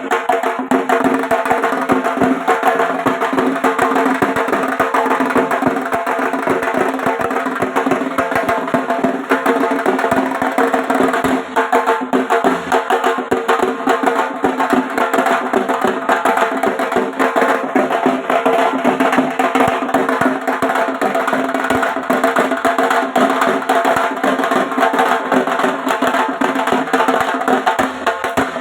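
Dhak, the large Bengali barrel drum, beaten with wooden sticks in a fast, dense, unbroken rhythm, its heads ringing under the strokes.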